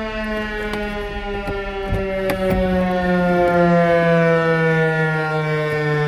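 Federal Signal FS-508 outdoor warning siren sounding one long tone rich in overtones that slowly falls in pitch as it winds down. It grows louder about halfway through as the rotating siren turns toward the listener.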